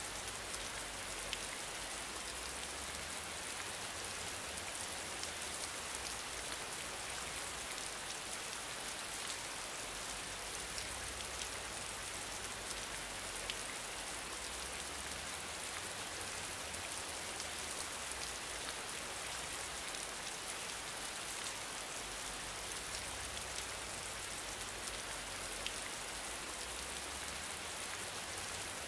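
Steady rain-like hiss with scattered faint ticks, as of rain falling on a surface.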